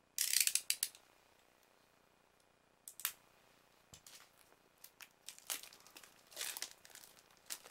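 Clear plastic shrink-wrap film on a small cardboard box crinkling as hands handle it: a loud rustle right at the start, then scattered crackles that grow busier toward the end.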